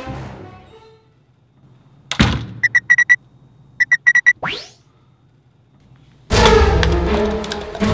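A single thud, then an Enforcer electronic door keypad beeping as buttons are pressed: two runs of four short, identical beeps, about a second apart, followed by a quick rising tone. Loud music comes in near the end.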